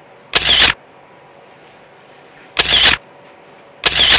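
Camera shutter sound effect, three short loud snaps spaced irregularly, over a low hiss.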